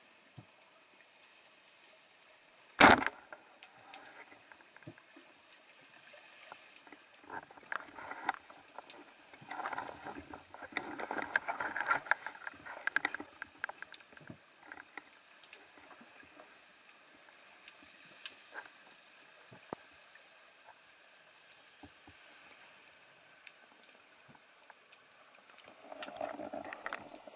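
Underwater crackling and clicking, with one sharp, loud knock about three seconds in and denser bursts of crackle in the middle and near the end.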